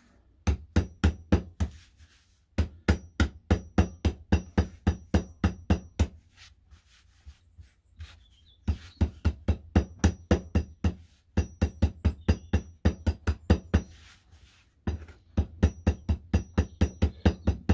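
Claw hammer striking coffee beans on a cutting mat, crushing them to grit: runs of quick taps, about four a second, each with a faint metallic ring, broken by a pause of about two seconds midway.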